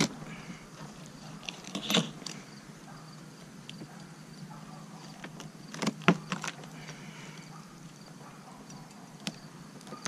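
Knife cutting a raw chicken into quarters on a cutting board: a few sharp knocks of the blade on the board, one about two seconds in, three close together around six seconds and one near the end, over a faint steady low hum.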